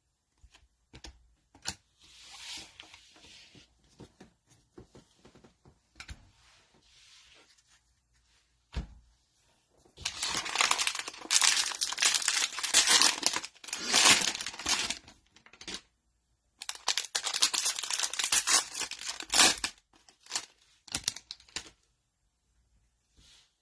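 Cellophane wrapper of a trading-card cello pack being torn open and crinkled, loud in two spells of about five and three seconds in the second half. Before that there are only scattered light clicks and rustles.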